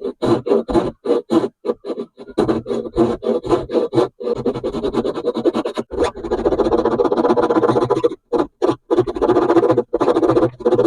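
Background music with a choppy, stuttering rhythm of short hits and sudden cut-offs, denser and more continuous past the middle.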